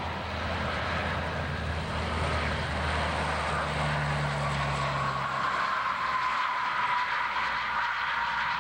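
Aircraft engine running: a steady rushing roar with a high whine that drifts slightly lower in pitch over the last few seconds.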